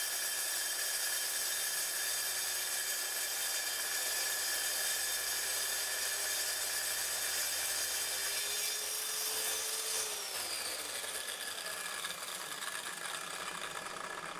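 Grizzly T10687 track saw crosscutting the end of a solid walnut panel, its motor running at a steady pitch through the cut. About ten seconds in, the motor note drops as the saw winds down.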